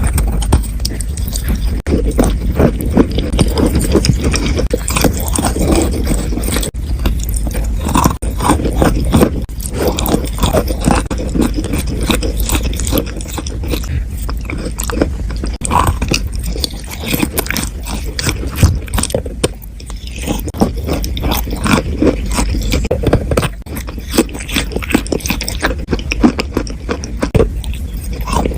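Close-miked biting and chewing of chalk and clay: a dense, continuous run of crunchy crackles and scrapes, with a steady low hum underneath.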